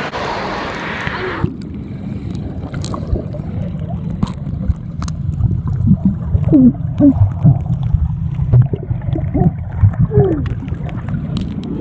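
Pool water heard with the microphone underwater: about a second and a half in, the sound turns muffled as it goes under, leaving a low rumble. In the second half, bubbling gurgles rise through it and it grows louder.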